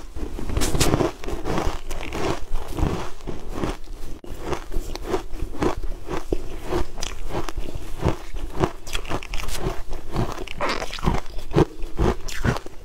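Close-miked chewing of a crumbly green cake: a steady run of crunching bites, a few a second.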